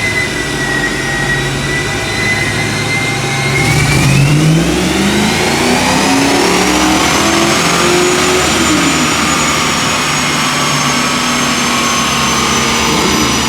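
Car engine on a chassis dyno making a pull: the revs and a high-pitched whine climb together from about four seconds in, peak near eight seconds, then hold and ease off slightly.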